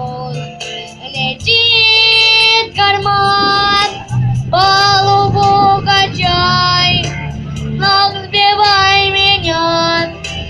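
A high voice singing a melody of held notes, each lasting about half a second to a second and a half, over a low instrumental accompaniment.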